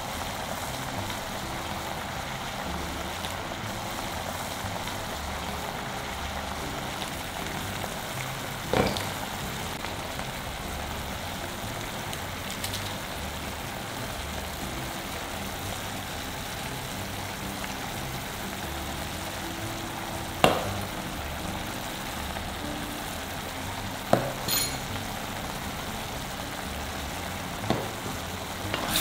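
Pork and sauce sizzling steadily in a clay pot on the heat, with a few sharp taps spread through, the loudest about twenty seconds in.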